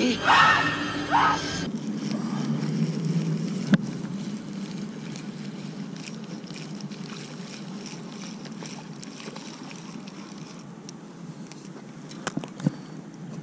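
A brief line of a man's voice from a film clip, then steady water and wind noise while a spinning reel is cranked, with a sharp click a few seconds in and a few more clicks near the end as a crappie is lifted out of the water.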